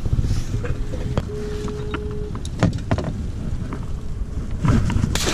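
Wind rumbling on the microphone aboard a small boat, with a few sharp knocks and clatters of crab-pot gear being handled. A brief thin steady tone sounds for about a second, a little over a second in.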